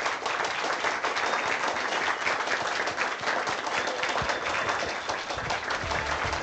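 Studio applause: many people clapping steadily together.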